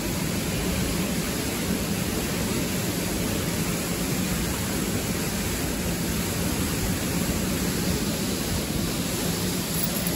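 Steady rush of water pouring from a dam's discharge outlet, an even, unbroken noise.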